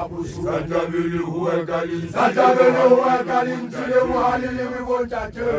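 Group of Basotho initiation graduates (makoloane) chanting together in young men's voices over a held low drone, a traditional initiation chant.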